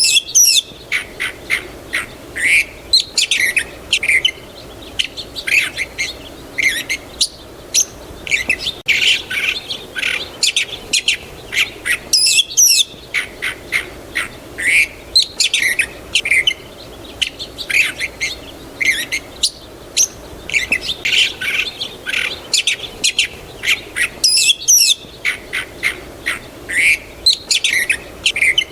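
Several small birds chirping and calling in rapid, overlapping short notes, some sweeping quickly up or down in pitch, over a faint steady low background hiss.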